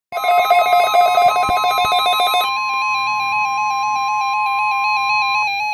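NOAA Weather Radio 1050 Hz warning alarm tone sounding steadily for its weekly test. A second buzzy electronic tone trills rapidly between two pitches over it. The steady alarm tone cuts off near the end, and the trill carries on.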